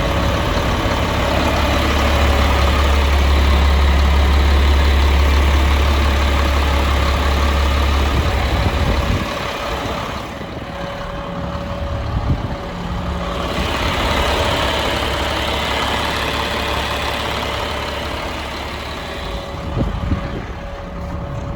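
Sterling Acterra deck truck's diesel engine running at idle, with a loud deep drone for roughly the first nine seconds that then drops to a quieter running sound; a faint steady whine sits over it throughout.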